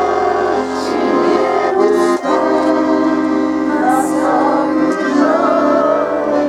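Accordion playing an instrumental interlude between sung verses of a folk-style song: sustained chords over a bass line that changes about two seconds in and again near five seconds.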